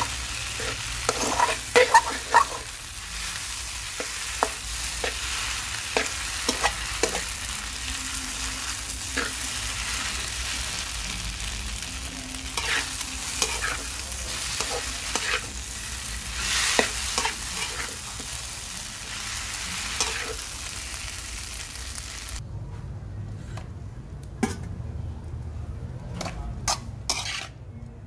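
Wide rice noodles and egg sizzling in a hot wok as a spatula stirs and scrapes them, with frequent sharp scrapes and clacks of the spatula on the pan. The sizzle cuts off suddenly about twenty-two seconds in, followed by a few clinks of metal.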